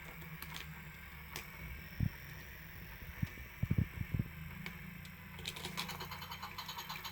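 Toy cars and a Hot Wheels race playset being handled: a few dull knocks, then rapid clicking from about five and a half seconds in.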